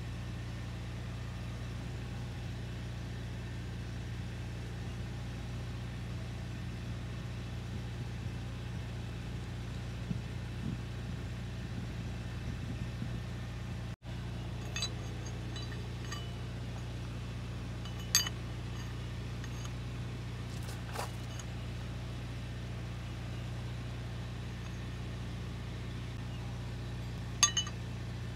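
Steady low mechanical hum with a few sharp clinks, the loudest near the end.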